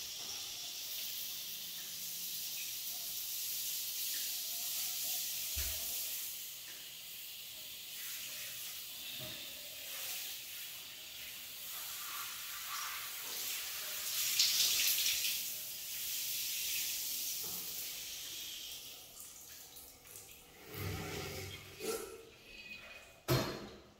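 Handheld shower head spraying water over the shower's glass and tile, rinsing off bleach water: a steady hiss that swells briefly a little past halfway and dies away near the end, followed by a few knocks.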